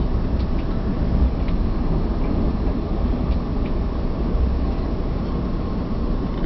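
Steady low rumble of a moving Via Rail passenger train heard from inside the coach, with a few faint light ticks.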